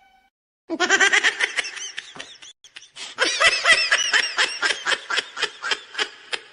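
Meme laugh sound effect: high-pitched, rapid pulsed laughter in two bouts, the second longer and tailing off.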